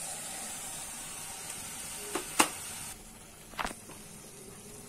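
Fried masala with freshly added crumbled paneer sizzling in a steel kadai on a gas burner. The sizzle quietens about three seconds in. Two sharp knocks sound, one a little after two seconds and one past three and a half.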